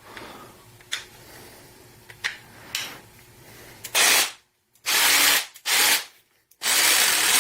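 Black+Decker 20V MAX cordless jigsaw (BDCJS20B) run in four short bursts on the trigger, the blade stroking noisily with each pull, after a few faint clicks of handling the tool.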